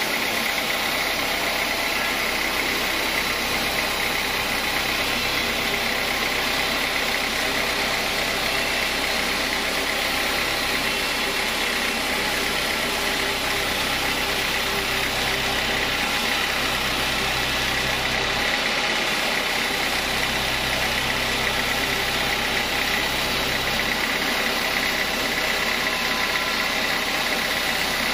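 Homemade sawmill running steadily while its blade saws through a hard acacia log. A continuous mechanical drone with a high, even cutting hiss, and the low hum shifts a few times as the load changes.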